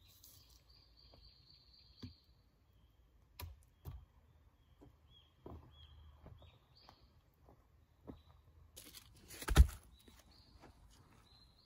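Quiet outdoor ambience with runs of short, high chirps from a small bird or insect and scattered faint clicks and knocks. About nine seconds in comes a louder crunching rustle that peaks in a sharp thump.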